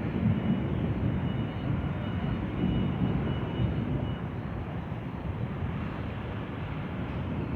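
A storm's steady low rumble with an even hiss above it, wavering slightly in loudness and never stopping.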